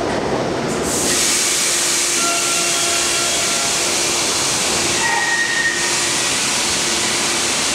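A subway train standing at the platform gives a loud, steady hiss of air that starts abruptly about a second in and carries on over the station hum.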